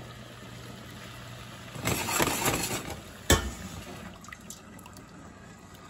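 Heavy cream being poured from a measuring cup into a saucepan of hot reduced wine: a loud stretch of pouring and splashing liquid about two seconds in, followed by a single sharp knock, then quieter sounds from the pan.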